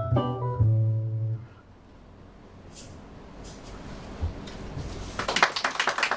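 A small live jazz band, with piano and double bass, plays the last notes of a tune and ends on a held chord about a second and a half in. After a short hush, audience applause starts about five seconds in.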